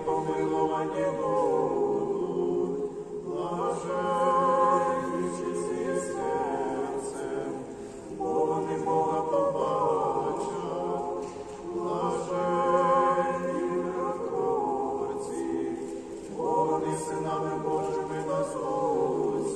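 Church choir singing a cappella in several voice parts, a chant of an Eastern-rite memorial service (panakhyda), in long phrases with brief pauses between.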